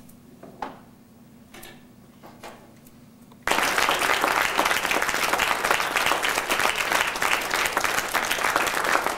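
Audience applause that breaks out suddenly about a third of the way in and carries on steadily, many hands clapping at once. Before it there are only a few faint knocks.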